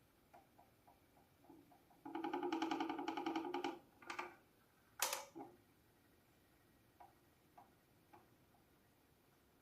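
Candes room heater making the noise that is its fault: faint ticking about twice a second, then a loud buzzing rattle for almost two seconds about two seconds in, a shorter buzz, and a sharp click about five seconds in before the ticking resumes.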